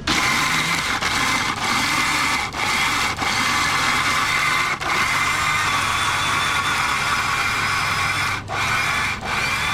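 Electric grinder milling roasted dried chilies into chili powder: a loud, high-pitched whir that starts suddenly, with a few brief dips in level.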